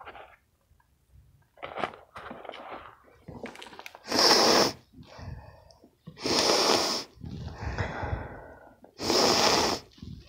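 A person sniffing hard through the nose, close to the microphone, at a handful of crushed mothballs: three long, loud sniffs, each under a second, about 4, 6 and 9 seconds in. Between them come quieter crackling and rustling of the mothball crystals in the fingers.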